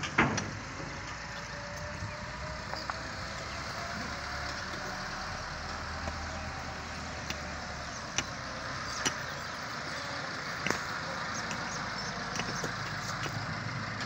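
Steady outdoor background noise with a motor vehicle running somewhere off in the distance, and a few scattered sharp clicks.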